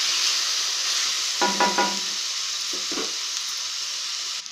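Chopped tomatoes, onions, green chillies and methi leaves sizzling in hot oil in an aluminium kadai while being stirred with a wooden spatula, with a brief clatter about a second and a half in. The sizzling cuts off suddenly near the end.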